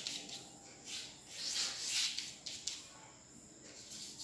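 Chalk drawing strokes on a blackboard: a few scratchy swishes, the longest about a second and a half in, with a couple of light taps of the chalk soon after.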